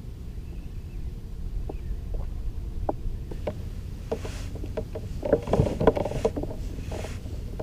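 Light knocks and clatters on a fishing kayak, scattered at first and then thickest and loudest about five to six and a half seconds in, over a steady low rumble of wind and water.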